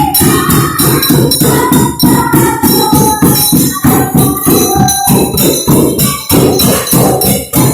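Improvised percussion on household objects, with metallic jingling like a tambourine or jingle bells, played as a fast, steady beat of about four to five strikes a second, with a tune wavering above it.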